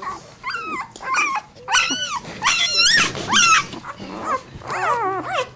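Newborn Great Dane puppy crying: a string of high-pitched squeals, each rising then falling in pitch, about six in all.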